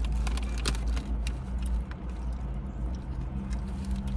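Car engine idling: a steady low rumble with a faint hum, and a few light clicks.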